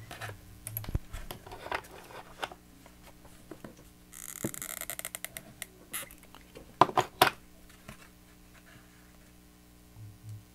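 Hands handling a cardboard book box and seam-binding ribbon while hot-gluing the ribbon in place: scattered taps, scrapes and rustles, with a brief rustle about four seconds in and a couple of sharper knocks about seven seconds in.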